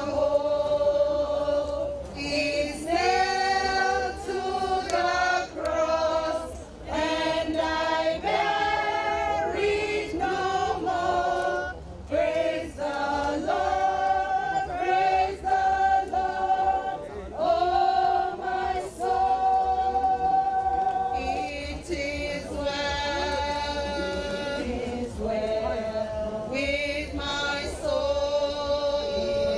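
A group of mourners singing unaccompanied in chorus: a slow melody of long held notes, with a faint steady low hum beneath.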